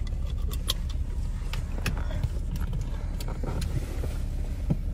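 Cabin noise of a 1992 BMW E32 750iL V12 under way: a steady low rumble from the car and road, with a scattering of sharp clicks and small knocks.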